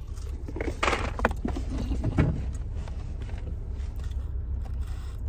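A few short rustles and handling noises from eating chicken wings out of a cardboard takeout box, over a steady low hum in the car's cabin.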